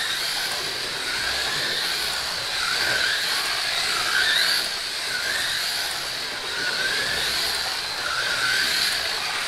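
Pioneer slot cars, a '67 Camaro and a '68 Mustang, lapping the track, their small electric motors whining over a steady hiss. The pitch rises in short sweeps about once a second as the cars speed up out of the turns.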